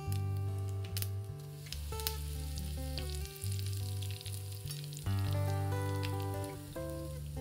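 Hot oil sizzling and crackling in a small steel pan as urad dal fries for a tempering, with curry leaves dropped into the oil partway through. Background music with a steady bass line plays over it.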